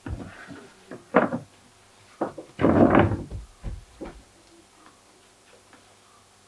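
Knocks, bumps and scrapes of stage props being handled and moved during a scene change. The loudest, longest scrape comes about three seconds in, and it goes quiet after about four and a half seconds.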